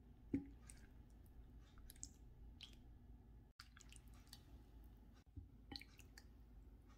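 Near silence with faint small splashes and light knocks as a ladle serves chicken soup into a white bowl, one sharper knock about a third of a second in.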